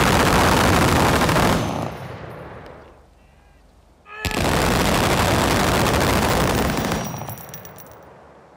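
A line of eight belt-fed machine guns firing together in sustained bursts. The first burst stops about one and a half seconds in, and a second one of about three seconds starts about four seconds in. Each burst dies away in a rolling echo.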